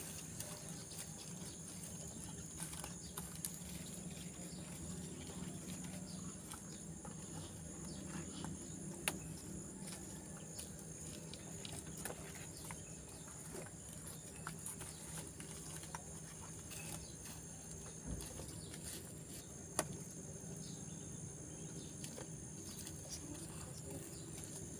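Outdoor ambience: a steady high-pitched insect drone over a low steady hum, with a few sharp clicks and light rustles.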